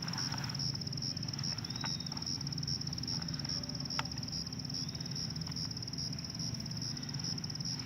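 Steady, high-pitched insect chorus with a fine pulsing trill, typical of crickets. A few faint short chirps and a single sharp click about four seconds in.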